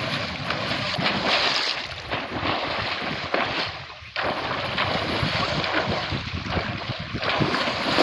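Rushing, churning water noise mixed with wind buffeting the microphone. It dips briefly just before four seconds in and comes back suddenly.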